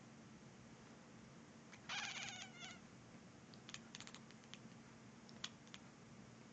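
A domestic cat gives one short, wavering meow-like call about two seconds in, followed by several faint clicks.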